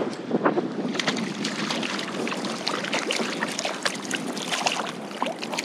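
Sea water splashing and slapping against a kayak's hull while a hooked mackerel thrashes at the surface, in many short, irregular splashes, with wind on the microphone.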